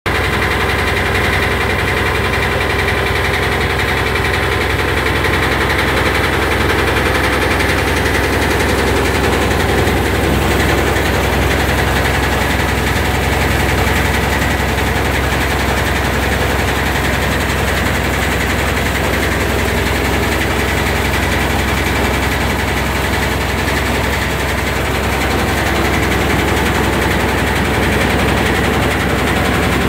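Multicrop paddy-wheat thresher running steadily and loud, a dense rapid rattle over a steady low hum.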